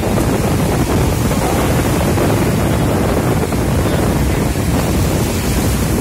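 Wind buffeting the microphone over the steady rush of breaking surf.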